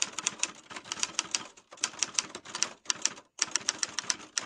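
Typewriter key-strike sound effect: rapid clacking keystrokes, about five a second, in runs broken by two short pauses, as on-screen text is typed out.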